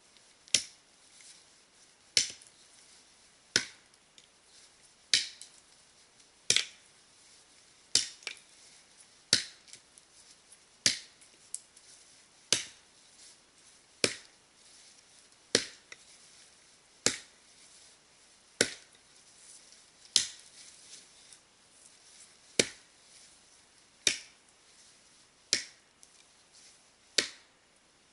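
Axe chopping into the trunk of a standing conifer to fell it: a sharp chop about every second and a half, with one slightly longer pause past the middle.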